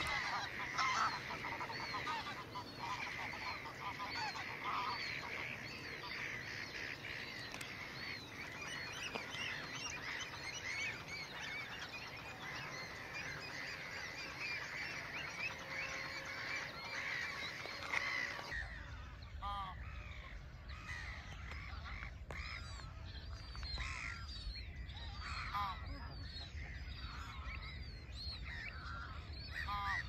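Dawn chorus of many birds calling: a dense wash of quick chirps and song, with waterfowl calls among them. About two-thirds of the way in, the sound changes to fewer, separate repeated calls over a low rumble.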